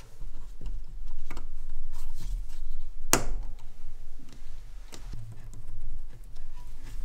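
Small plastic wire connectors being handled and pushed into a 3D printer's Z limit switch and Z stepper motor, with rustling and a few light clicks. The sharpest click comes about three seconds in.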